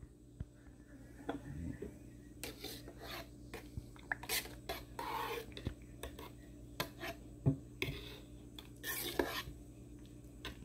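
A spoon clinking and scraping in a small camp cooking pot of soup: scattered light knocks with a few short scrapes.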